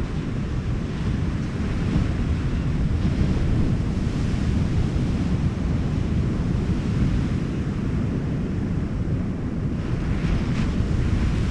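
Wind buffeting the microphone over the steady wash of ocean surf, a constant low rumble with no engine or propeller tone in it.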